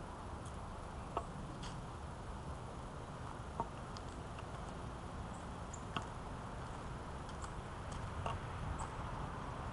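A walking stick and footsteps on brick paving, making scattered light taps and clicks at irregular intervals over a steady low rumble.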